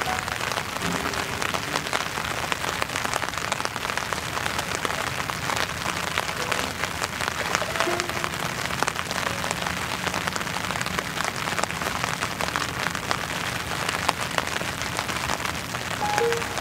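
Steady rain pattering, a dense even hiss made of many fine drop ticks. A few faint short pitched notes sound now and then over it.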